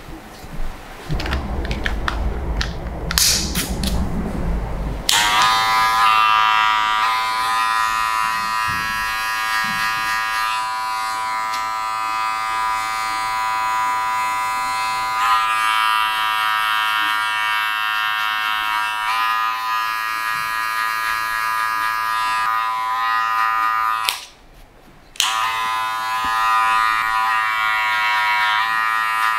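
Electric hair clippers running with a steady hum, the tone changing a little now and then; they cut out about 24 seconds in and start again a second later. Before the clippers start, a few seconds of rubbing and rustling.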